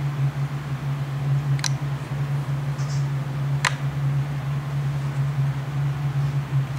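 A steady low hum, with two brief sharp clicks about two seconds apart.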